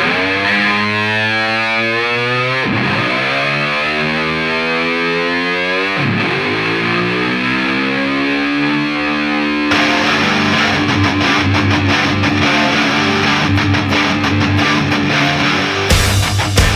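Rock music: a distorted electric guitar with a sweeping effect, joined by drums about ten seconds in and a heavier full band near the end.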